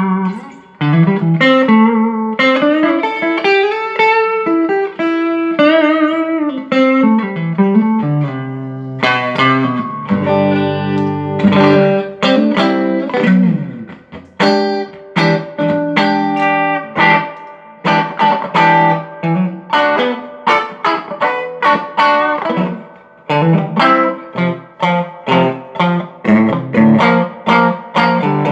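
Electric guitar played through a Mesa Boogie Studio .22+ tube amp: picked single-note lines with some sliding notes, and held chords. The amp is being sound-tested after a repair for sound that cut in and out at random.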